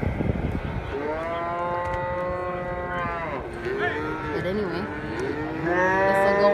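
Calves bawling while they are being worked for branding: two long, high bawls about two seconds each, one starting about a second in and falling off at its end, the other near the end. Lower, wavering moos from other cattle come in between.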